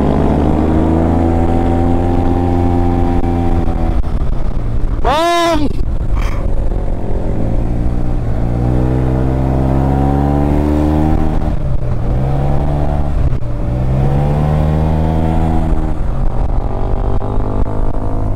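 Maxi-scooter engine pulling the bike along, its pitch climbing and dropping several times as the throttle is opened and closed through the bends, with wind and road noise under it. About five seconds in, a short, sharp, higher-pitched sound rises and falls over the engine.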